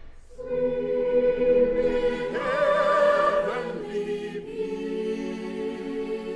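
Choir singing a slow carol in long held chords, beginning just under half a second in. A higher voice with vibrato rises above the chord in the middle, and the harmony shifts to a lower chord near the end.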